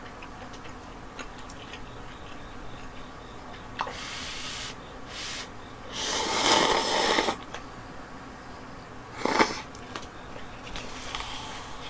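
Instant cup noodles being slurped with chopsticks. There are short airy slurps about four and five seconds in, a louder one lasting over a second about six seconds in, and another brief one about nine seconds in.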